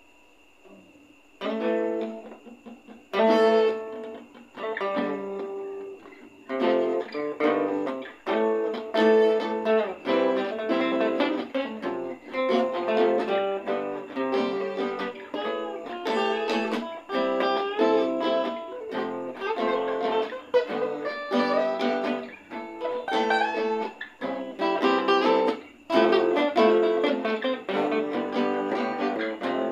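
Two acoustic guitar parts played together as an instrumental intro, plucked and strummed chords. It starts after a second or so of quiet, breaks off a few times in the first several seconds, then plays on steadily from about six seconds in.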